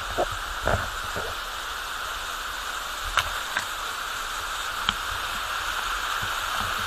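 Waterfall rushing steadily, with a few faint clicks scattered through it.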